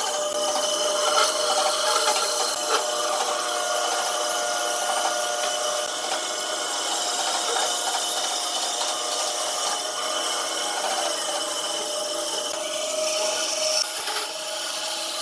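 A small power tool running steadily against wood, with a constant whine and a rubbing, scraping texture and a few light knocks.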